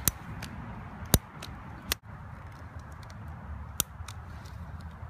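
Handheld plastic lighter being clicked: about five sharp, separate clicks at irregular intervals over a low background rumble.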